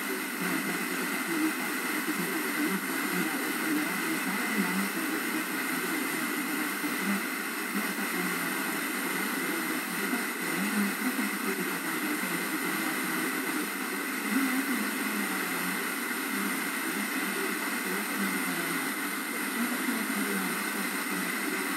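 FM tuner tuned to a weak, distant station on 98.7 MHz: steady hiss and static with faint programme audio fading in and out underneath, the sign of a marginal signal received by tropospheric scatter.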